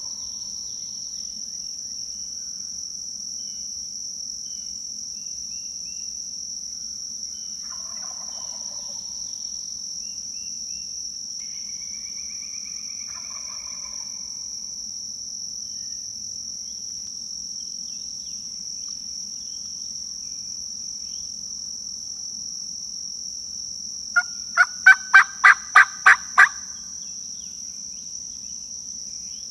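A run of about eight loud turkey yelps over two seconds near the end, starting spaced and then evenly paced, over a steady high insect chorus, with a few faint bird chirps earlier.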